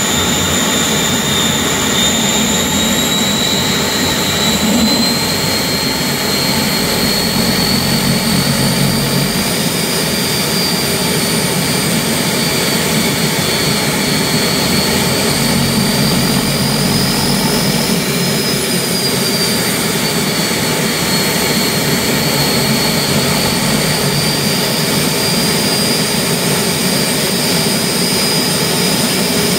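Turbomeca gas turbine engine running on a ground-run stand: a steady roar under a high compressor whine. The whine climbs slowly in pitch over the first half, sags briefly, then rises again.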